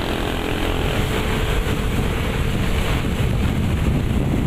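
Wind rushing over the microphone of a moving motorcycle, with the engine running underneath.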